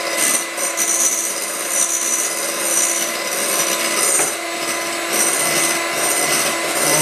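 Electric hand mixer running steadily, its beaters whisking egg whites in a bowl as they reach firm peaks.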